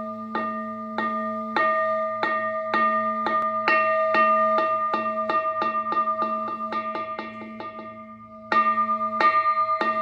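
Instrumental music: a run of sharp repeated plucked or struck notes over a steady held drone. The notes quicken and fade away, then start again loudly near the end.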